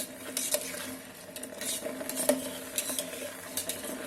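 A spoon stirring a sauce thickened with cornflour slurry in an electric kettle's cooking pot, with irregular clicks and scrapes of the spoon against the pot over a steady low sizzle.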